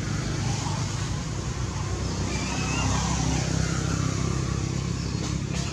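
A steady low motor hum, with a brief high wavering squeak about two and a half seconds in.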